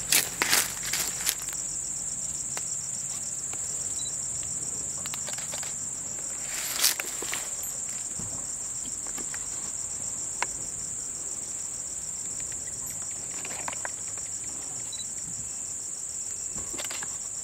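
Crickets chirping in a steady, high-pitched continuous trill, with a few brief rustles near the start and about seven seconds in.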